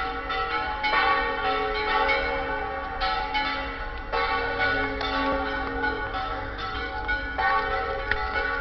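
Church bells ringing: several bells struck again and again, their tones overlapping and ringing on between strikes.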